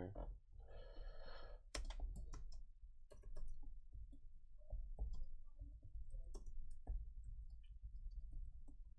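Irregular clicks of a computer mouse and keyboard being worked at a desk, over a low steady hum, with a short tone about a second in.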